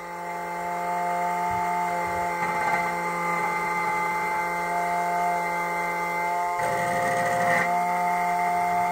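SEC-E9 key cutting machine's spindle whining steadily as its cutter mills a car key blank, with a louder, rougher stretch of about a second two-thirds of the way through.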